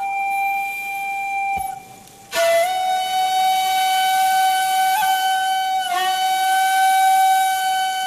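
Shakuhachi playing long held notes: the first fades out about a second and a half in, and after a short pause a louder note with a lot of breath noise begins and is held steady, wavering slightly in pitch twice.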